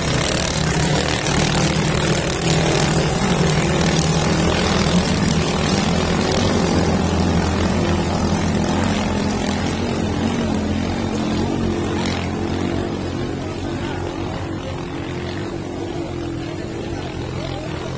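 Engine drone of motorized racing bangka boats running steadily, swelling in the first few seconds and slowly fading toward the end.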